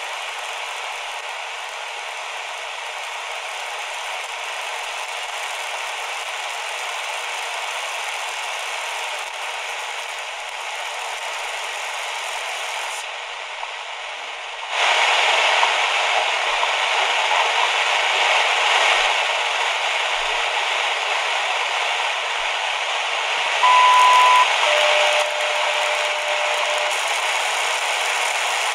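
Shortwave static and hiss from the QFX R-39 portable radio's small speaker as its dial is tuned across the band. The sound is thin, with no bass, and gets louder about halfway through. Near the end come two short, steady whistles at different pitches.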